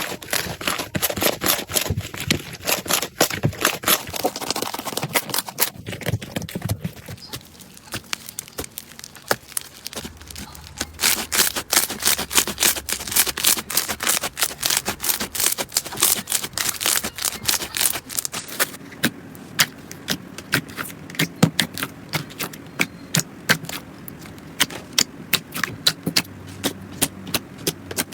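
Slime being squeezed and poked by hand, giving many sharp crackling clicks and pops in quick succession. The clicks thin out for a few seconds about a third of the way in, then come thick again.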